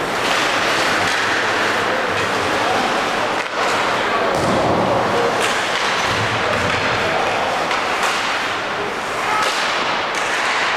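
Ice hockey game: a steady din of crowd and rink noise with several sharp knocks and thuds of sticks, puck and boards.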